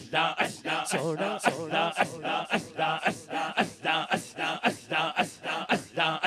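Rhythmic zikr chanting of "Allah" by a male voice through a microphone and PA, repeated in a fast, even pulse of about three chants a second.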